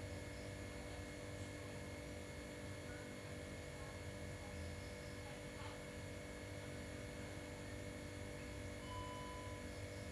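Steady low hum over a faint hiss, with a short faint steady tone about nine seconds in.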